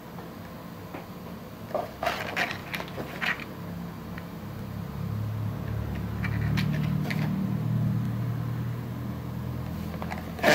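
Cardboard candy-kit box handled and turned in the hands, with fingers rubbing and tapping it: scattered light scuffs and taps about two seconds in and again around six to seven seconds, and a sharper tap at the very end. A low hum swells in the middle and then eases.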